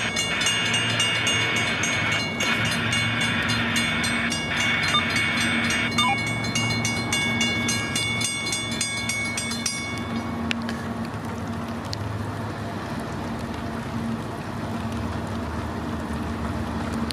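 Railroad grade-crossing bell ringing rapidly while the crossing gate arm lowers, then falling silent about ten seconds in as the gate comes down. A low steady hum runs underneath.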